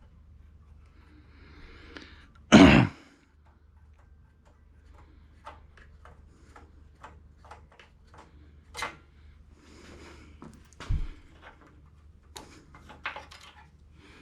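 Small parts and hand tools being handled and set down during an ignition coil swap: scattered light clicks and taps, a low thump near the eleven-second mark, and one loud short clunk about two and a half seconds in.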